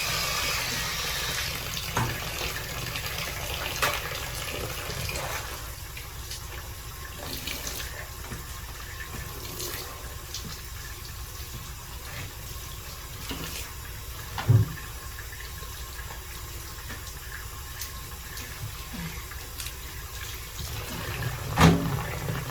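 Tap water running while plastic car cup-holder inserts are washed, louder in the first couple of seconds and then a steady gentle flow. A few knocks as the pieces are handled, the sharpest about halfway through and another near the end.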